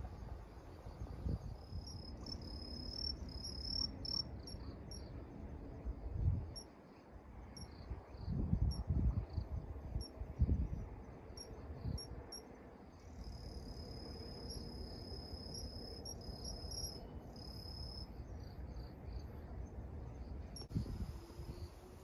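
Crickets and other autumn insects chirping in high, thin, pulsing trills, with a few low rumbles of wind on the microphone.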